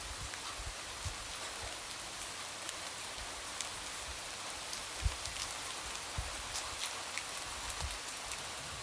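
Light rain falling steadily, with scattered drops ticking and tapping against a window.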